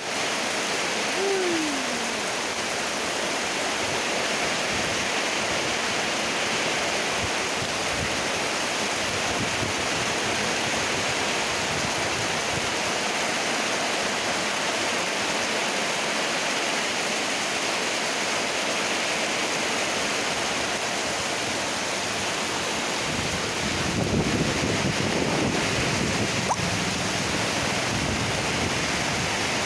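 Floodwater rushing steadily across a road, a continuous churning wash of water. A brief falling tone sounds about a second in, and a louder low rumble with a faint hum rises over the water near the end.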